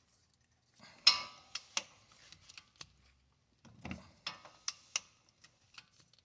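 Scattered metallic clicks and clinks of a torque wrench and socket being worked on the caliper bracket bolts, the loudest about a second in.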